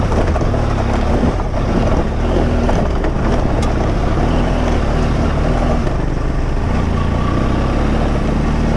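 Dirt bike engine running under way on a rough track, recorded on the bike, its pitch rising and falling with the throttle.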